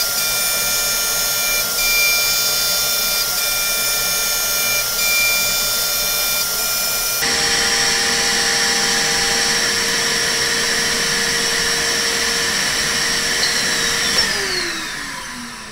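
Machining spindle with a solid carbide end mill cutting C45 steel in repeated passes. The cutting tone breaks off briefly about every second and a half as each pass turns around. About halfway through the cutting stops and the spindle runs on with a steady whine, and near the end it spins down in a falling pitch.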